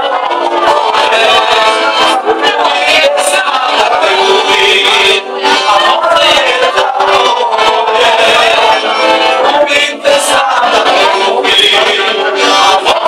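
A group of people singing a song together, with a man's voice prominent, to a live strummed guitar; loud and continuous.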